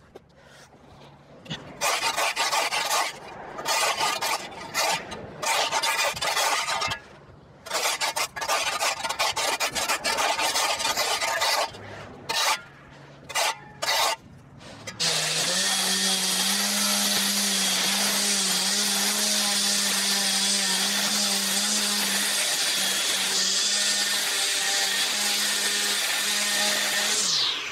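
A shovel scraping dirt off a concrete footpath in a series of separate strokes; about halfway through, a battery-powered lawn edger starts and runs steadily, its blade cutting along the edge of the path.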